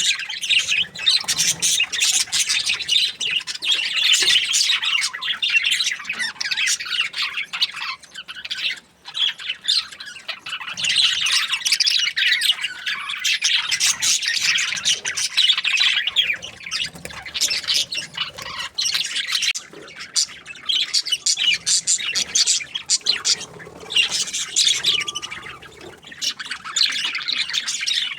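Several budgerigars chirping and chattering together in a dense, unbroken stream of quick high chirps and squawks, with a short lull about nine seconds in.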